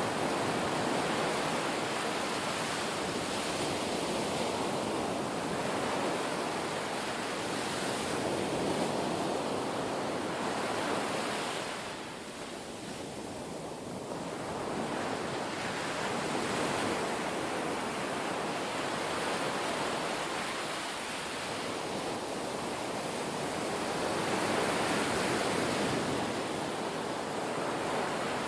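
Ocean surf: the rush of waves breaking and washing in, swelling and easing every several seconds, with a lull about twelve seconds in.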